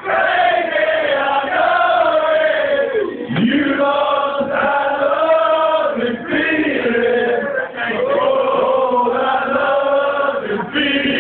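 A man singing a slow tune in long held notes, with no instruments audible, picked up thinly by a mobile phone.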